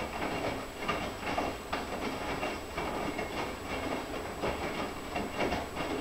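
Front-loading washing machine in its wash cycle, the drum tumbling wet laundry: water sloshing and splashing against the door glass in an uneven churning rhythm.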